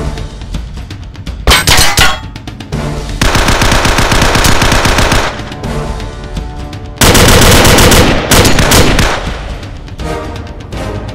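Bursts of rapid automatic gunfire, as a film sound effect: a short burst about a second and a half in, a long burst from about three to five seconds, and another from about seven to nine seconds. Background music plays between the bursts.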